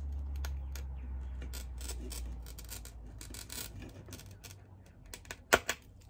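Hand-held glass cutter scoring a curved line across a small piece of glass: a gritty scratching with fine crackles for about four seconds. It ends and a sharp click follows near the end.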